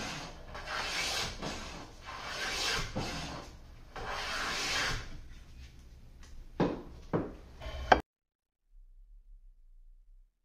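Stanley No. 5 jack plane shaving the edge of a board: three long strokes of about a second each, taking passes to bring the edge square to the faces. A few sharp knocks follow.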